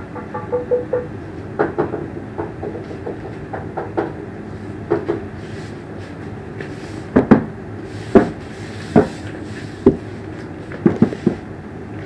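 A series of irregular sharp knocks and clicks over a steady low background noise, with the loudest knocks bunched in the second half.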